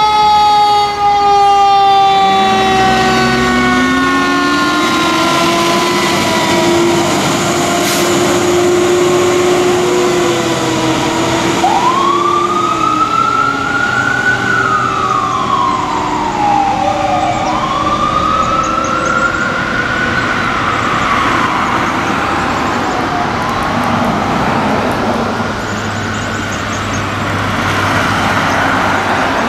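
A 2010 Spartan Gladiator/Smeal fire engine's sirens: a Federal Q2B mechanical siren coasts down in a long, slowly falling tone, then an electronic siren wails up and down twice, getting fainter as the truck pulls away.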